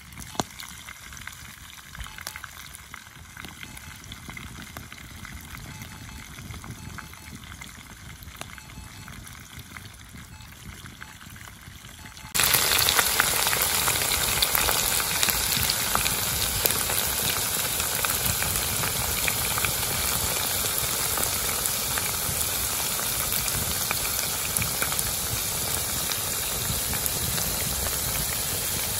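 Flour-coated chicken deep-frying in hot oil: a dense, steady crackling sizzle that turns abruptly much louder a little before halfway through.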